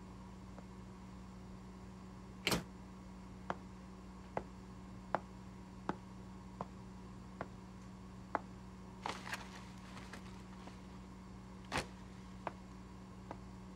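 Footsteps of shoes on a hard office floor, about one step every 0.8 s, over a steady low hum of room tone. A louder knock comes about two and a half seconds in and another near the end, with a short rustle of clicks in between.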